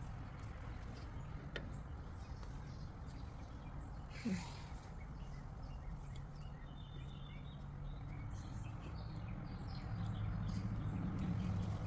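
Outdoor background: a steady low hum with faint bird chirps, a brief squeak about four seconds in, and the hum growing louder near the end.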